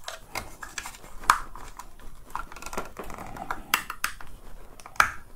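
Irregular plastic clicks and small scrapes as a small screwdriver pries at the plastic handle housing of a Dyson V10 cordless vacuum, with a few sharper clicks standing out.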